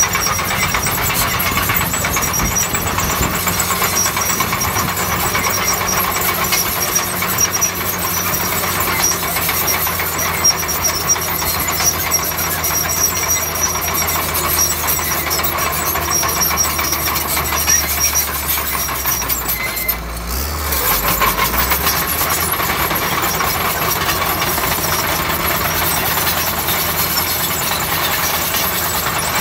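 Bulldozer's diesel engine running steadily under work. About twenty seconds in, its note drops and the sound eases for a moment before picking back up.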